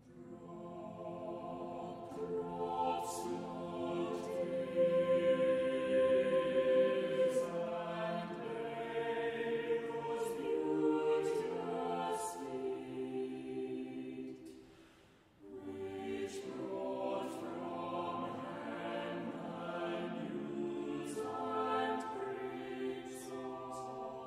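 Choir singing a slow, sustained piece, with a short break between phrases about fifteen seconds in.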